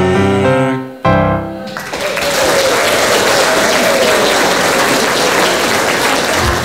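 The accompaniment's closing chords ring out and end about two seconds in, followed by the audience applauding.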